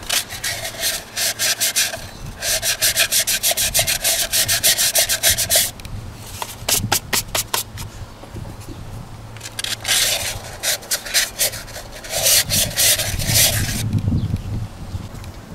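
Hand sanding of a rusted cylinder bore in a Toyota 1KZ-TE diesel block with 180-grit wet-and-dry paper. It sounds as rapid back-and-forth rasping strokes in several bursts, separated by short pauses.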